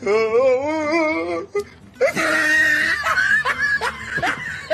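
A person laughing: a long wavering laugh first, then breathy giggles broken by short rising squeaks.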